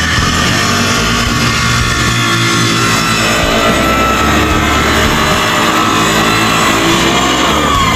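Background rock music with guitar and bass.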